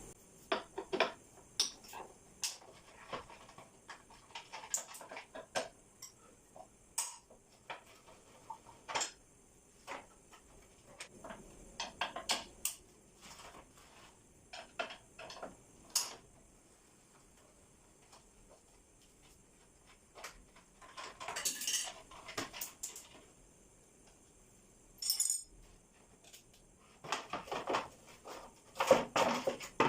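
Spanner and hand tools clinking and tapping on metal while the motorcycle's front mudguard bolts (8 mm) are undone, in scattered irregular clicks, with longer rattling stretches near the middle and again near the end.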